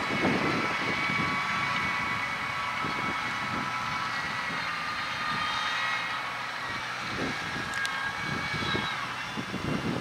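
Case IH Maxxum 120 tractor engine working steadily under load as it pulls a five-furrow plough through the soil, with a steady high whine over its drone.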